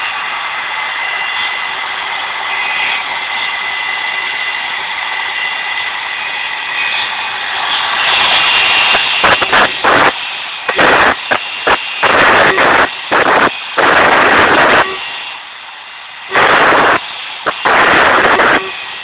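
Homemade CNC router's spindle running with a steady whine. From about eight seconds in, much louder cutting noise starts and stops abruptly, in bursts from a fraction of a second to about a second long.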